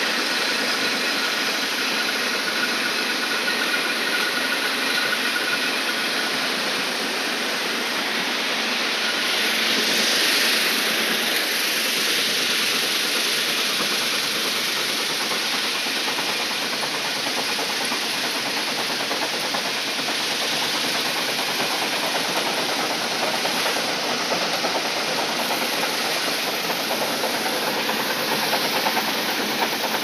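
Stone-crushing plant running: jaw crusher and conveyor belts working crushed rock, making a steady, dense machinery noise that swells slightly about a third of the way in.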